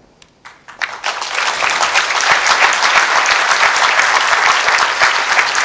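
Audience applauding: a few scattered claps in the first second quickly build into steady, dense applause.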